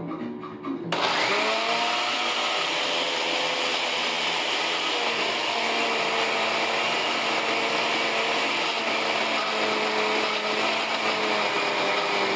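Countertop blender switched on about a second in, its motor spinning up and then running steadily as it purées a thick green sofrito mixture of herbs and vegetables with a little water and oil.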